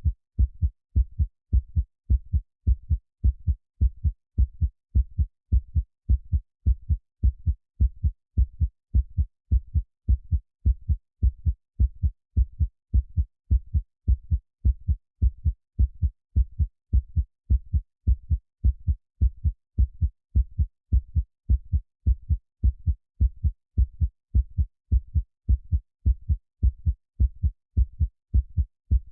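Heartbeat sound: a steady lub-dub rhythm of paired low, muffled thumps, repeating evenly without a break.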